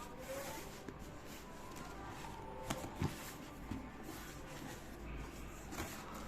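Faint handling noise from a shoebox and its packaging being opened, with a couple of soft clicks about three seconds in.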